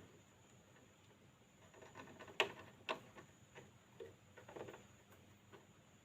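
A hamster making a run of faint, sharp clicks and crunches, loudest twice around two and a half to three seconds in.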